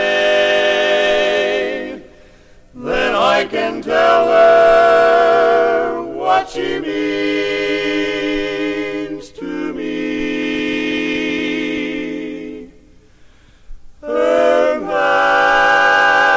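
Barbershop quartet singing a cappella: men's voices holding long close-harmony chords with vibrato, with two short breaks between phrases.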